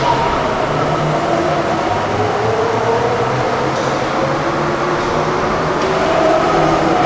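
Tateyama Tunnel trolleybus running at the station: a steady loud mechanical rumble with an electric motor whine that wavers slowly in pitch.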